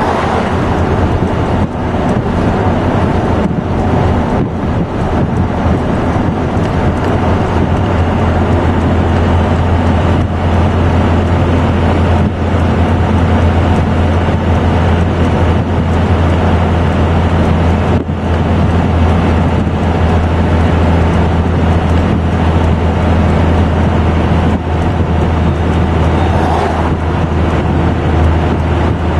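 Dodge Ram 2500's 12-valve Cummins 5.9 L turbo-diesel inline-six droning steadily at highway speed while towing a CAT D4 bulldozer, heard inside the cab over steady road noise.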